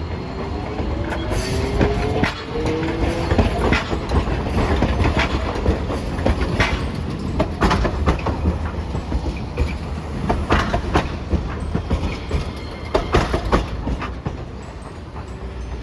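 Hiroshima Electric Railway streetcar running through a track junction. A motor whine rises in pitch over the first few seconds as it pulls away, under a low rumble of wheels on rail, with a string of sharp clacks as the wheels cross the rail joints and crossings.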